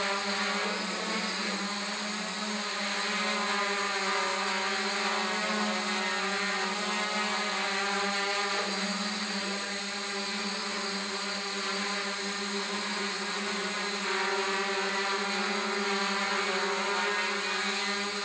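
DJI F550 hexacopter hovering on its six motors and 8x4.5 propellers: a steady drone made of many stacked tones, with a thin high whine above them.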